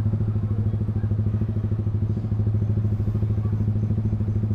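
Yamaha R15 V3's single-cylinder engine running steadily at low revs, not revving, through a loud aftermarket Proliner exhaust, with an even pulsing beat.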